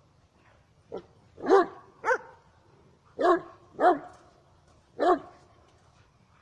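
German shepherd dog barking: six loud barks in uneven spacing, the first a shorter, weaker one about a second in.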